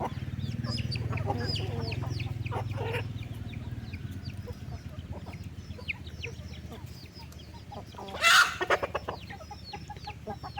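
A flock of chickens clucking, with many short high-pitched calls throughout and one loud call about eight seconds in. A low rumble runs under the first three seconds.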